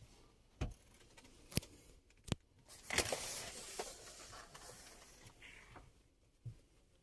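Handling noises: three sharp clicks or taps, then a rustle lasting about two seconds that fades, and a soft thump near the end.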